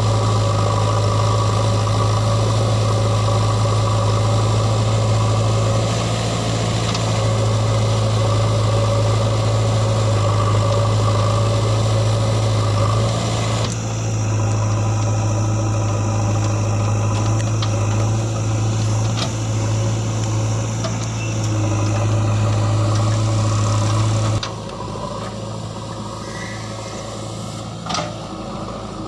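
JCB 3DX backhoe loader's diesel engine running steadily with a strong low hum. It suddenly becomes quieter near the end, where a couple of short clicks are heard.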